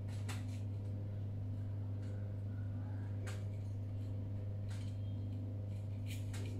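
Knife slicing a red horn chili pepper on a small cutting board, with a few light, separate taps of the blade, over a steady low hum.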